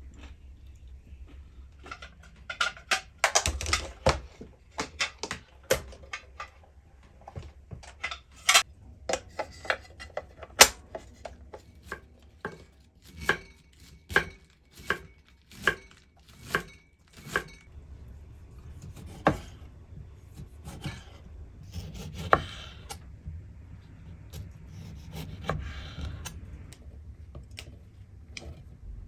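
Kitchen knife cutting red cabbage on a wooden cutting board: a long run of sharp chopping strokes, settling into an even pace of about one and a half strokes a second. After that come softer rubbing and handling sounds with a few isolated clicks.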